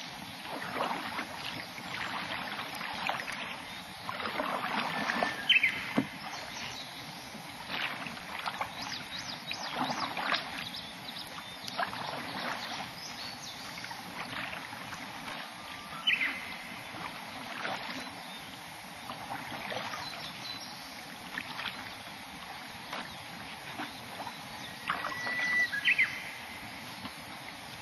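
Kayak paddle blades dipping and pulling through calm water, a stroke every second or two. A few short high chirps are heard among the strokes.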